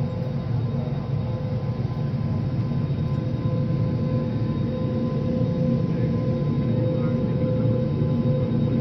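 Steady drone inside a jet airliner's cabin on the ground, a low hum with a steady high whine running through it, from the engines and air systems.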